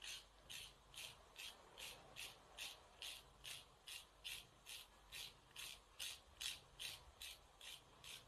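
Faint, even back-and-forth rasping of a nail file on a cat's claws, about three strokes a second.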